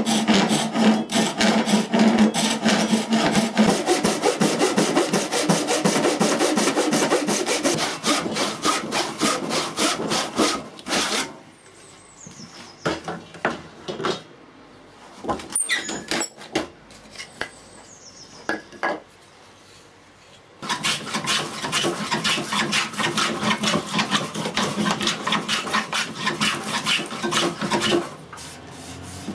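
Hand saw cutting wood with steady back-and-forth strokes, stopping about eleven seconds in. A quieter stretch follows with a few knocks of wood being handled, then the sawing starts again about two-thirds of the way through and stops just before the end.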